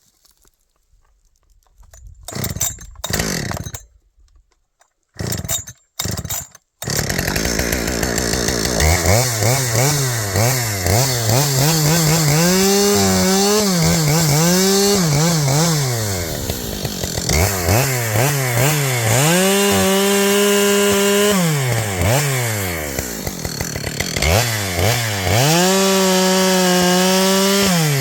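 Two-stroke chainsaw with a freshly hand-sharpened, still rusty chain: after two short bursts it keeps running about seven seconds in. It is then revved up to a steady full-throttle pitch three times, as when cutting into a log, dropping back toward idle in between.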